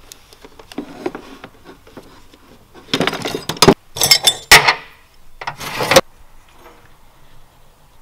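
Metal tools and loose metal parts clinking and clattering as a hand rummages through a tool chest drawer, in three loud bursts of clatter after a little faint handling.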